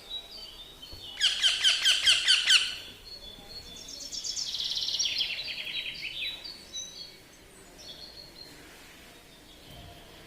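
Baby green parrot calling: a loud run of about ten quick falling chirps about a second in, then a faster trill of high chirps around four seconds in, with fainter chirps after.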